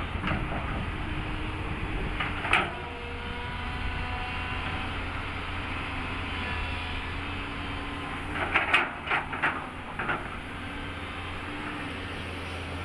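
JCB crawler excavator working, its diesel engine running steadily with a faint hydraulic whine. Sharp metallic clanks sound once about two and a half seconds in and several times between about eight and ten seconds in as the bucket and boom move.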